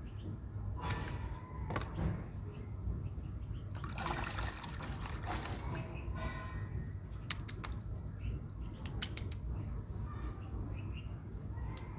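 Water and wet mud being handled, with a few sharp clicks, several close together about nine seconds in.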